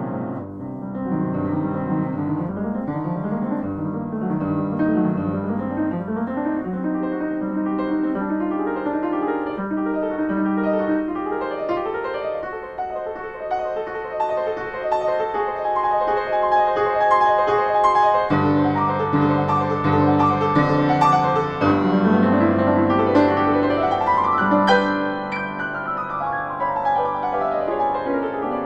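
Grand piano played solo in classical repertoire: dense, fast passagework. About two-thirds of the way in heavy bass notes come in, followed by a quick run up the keyboard and a quick run back down near the end.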